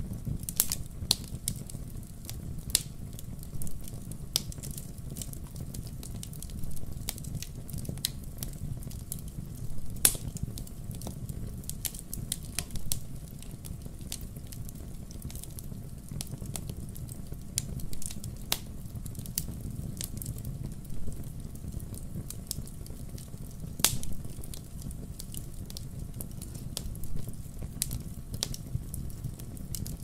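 Wood fire crackling in a fireplace: irregular sharp pops and snaps over a steady low rumble of the flames, with a few louder pops.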